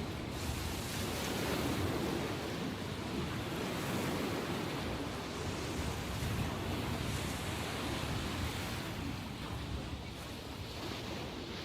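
Sea surf after a typhoon: waves washing in continuously, with slow rises and falls in loudness and some wind on the microphone.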